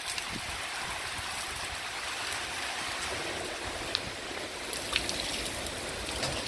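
Heavy thunderstorm rain falling in a steady hiss, with a couple of sharp ticks of drops striking close by.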